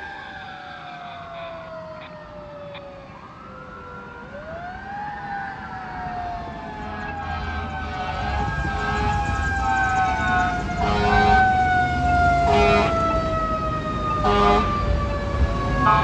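Fire apparatus sirens: one winds slowly down as it moves away. A second winds up about four seconds in and then falls slowly as the tower ladder truck approaches, with several short air-horn blasts and a growing truck engine rumble in the second half.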